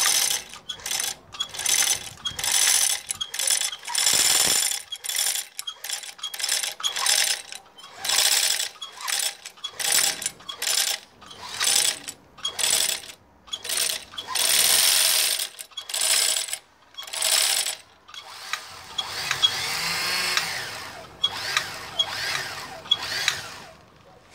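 Electric-motor-driven Singer sewing machine mechanism running in short spells of under a second each, starting and stopping again and again, then running steadily for about five seconds near the end.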